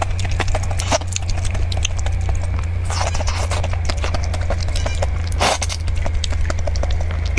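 Raw red prawn shell being cracked and peeled by hand close to a clip-on microphone: a run of small sharp clicks and crackles, with two longer, louder eating sounds about three and five and a half seconds in. A steady low hum lies underneath.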